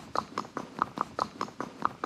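A horse's hooves clip-clopping on firm ground as it is ridden: sharp, even hoofbeats, about four or five a second.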